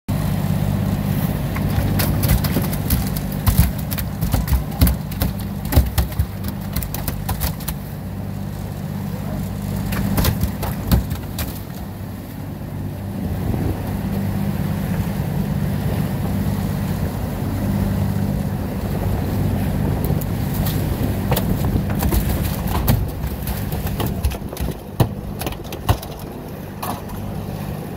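Small fishing boat's motor running steadily underway, over the rush and slap of choppy water. Repeated sharp knocks and thumps, most of them in the first eleven seconds and again near the end, as a Spanish mackerel is hauled aboard and struck on the deck.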